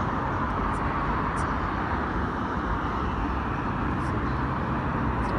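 Steady hum of highway traffic: tyres and engines of passing cars blending into one even roar, with no single vehicle standing out.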